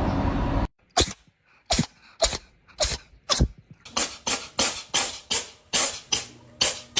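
A string of short, sharp snaps or clicks, about fifteen in all: a few spaced half a second or more apart, then quicker, about three a second, from about four seconds in.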